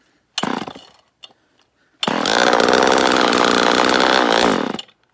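Homelite Super EZ Automatic two-stroke chainsaw being pull-started on a first start after fresh fuel went into the drained saw. A short burst about half a second in, then about two seconds in the engine catches and runs for nearly three seconds before cutting off suddenly.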